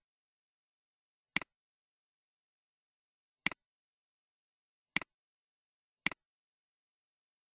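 Computer mouse clicks: four sharp single clicks at uneven spacing of one to two seconds, each a quick press-and-release pair, with silence between them.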